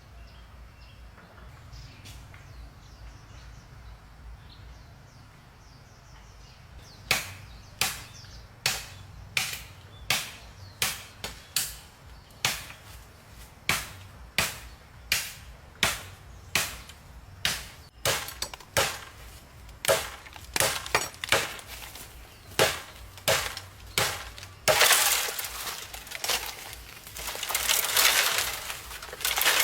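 A tool striking repeatedly: sharp blows, about one and a half a second, start about seven seconds in. Near the end a louder, continuous rasping noise takes over.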